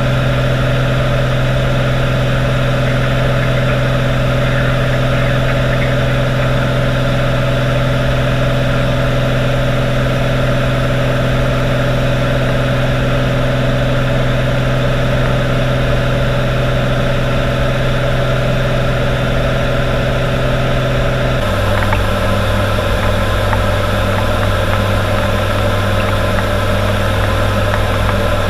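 Cessna TTx's turbocharged six-cylinder Continental engine and propeller droning steadily in flight. About three-quarters of the way through, the drone drops to a slightly lower pitch and stays there: the engine and propeller speed has been reduced.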